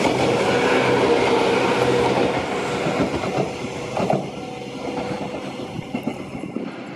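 Shizuoka Railway 1000 series two-car electric train passing close by, its running gear giving a steady hum and its wheels clicking over the rail joints. The sound fades from about three seconds in as the train moves away.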